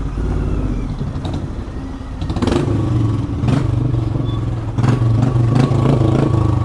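Motorcycle engine running along a rough dirt track, getting louder about two seconds in as the throttle opens, with a few knocks and rattles over the bumps.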